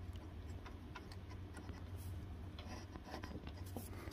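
Faint light clicks and ticks as a small ATV engine flywheel is turned by hand and worked onto its keyed crankshaft, over a low steady hum.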